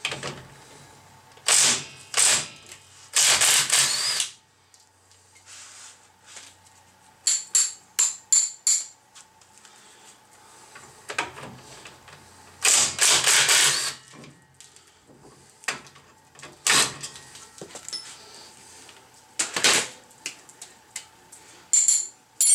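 Cordless impact driver hammering in several short bursts, the longest about a second, as it loosens the bolts of a truck's front drum-brake backing plate. Single sharp metal clinks and knocks of tool and parts come between the bursts and near the end.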